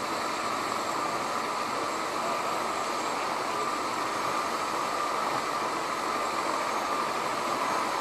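Steady mechanical hum of an idling vehicle, even throughout, with a thin steady whine above it.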